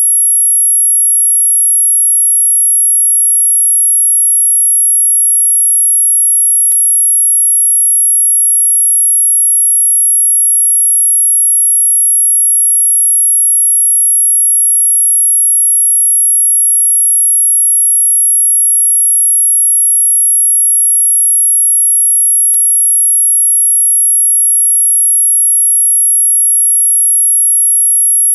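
A single very high-pitched, steady electronic tone, the kind of anti-barking sound played to make dogs stop barking. It holds one pitch throughout, broken only by two faint clicks, about a quarter and about four-fifths of the way in.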